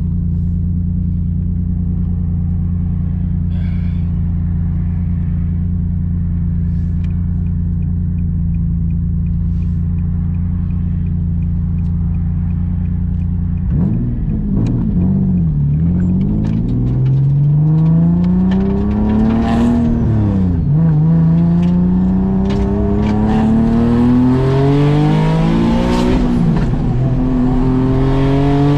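Single-turbo Nissan 370Z's 3.7-litre V6 heard from inside the cabin, holding a steady low note for about fourteen seconds. Then it pulls away under acceleration, its pitch climbing and falling back at each gear change several times.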